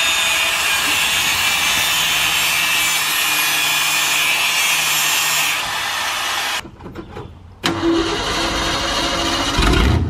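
Angle grinder cutting metal steadily for about six and a half seconds, a harsh high grinding hiss, under a Ford F100 pickup as its exhaust is being taken off. After a short break the truck's engine starts near the end with a deep low rumble.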